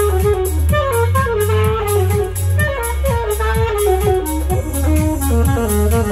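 Saxophone playing a melody of short falling phrases over a backing track with a steady beat, about four ticks a second, and a heavy bass.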